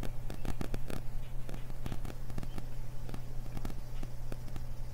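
Crackling static in a computer's audio recording: irregular clicks and pops over a steady low electrical hum, thicker in the first couple of seconds. The speaker puts the static and crackling down to problems with her computer.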